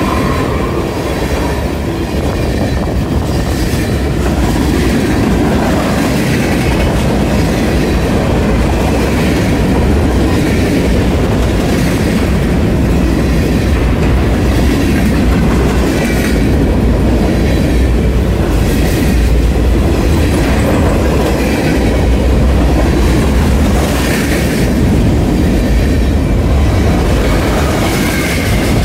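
Freight train of tank cars rolling past close by: a steady rumble of steel wheels on rail, with clickety-clack over the rail joints and brief faint wheel squeals now and then.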